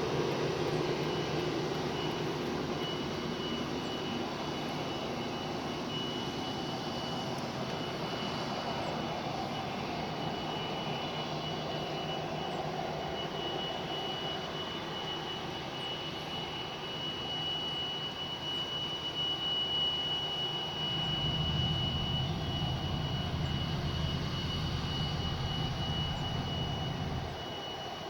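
A strange high-pitched whistle holding one unchanging tone over a steady rumbling background noise. The rumble swells about three quarters of the way through and cuts off suddenly near the end, while the whistle carries on.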